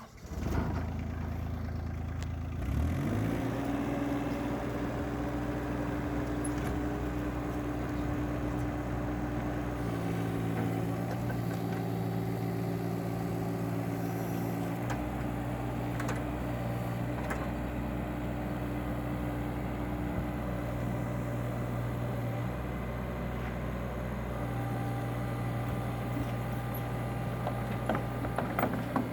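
Kubota mini excavator's engine starting, its pitch rising about three seconds in as it revs up, then running steadily. Its tone changes for a few seconds between about ten and fifteen seconds in, and there are a few knocks near the end.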